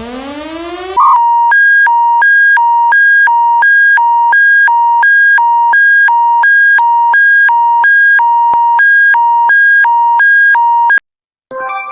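Electronic two-tone alert signal, alternating between a low and a high beep about twice a second and cutting off suddenly about eleven seconds in. It is preceded by the last second of an electronic siren sweeping up in pitch.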